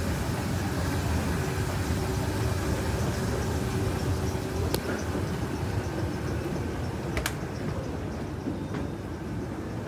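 Escalator running: a steady mechanical hum and rumble of the moving steps, with a faint steady tone that stops about halfway through. Two sharp clicks, one about halfway and one near three-quarters through.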